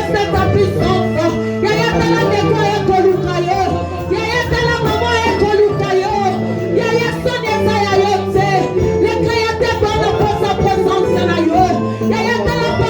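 Church worship music: voices singing over a band with held low bass notes that change every second or so and a light regular beat.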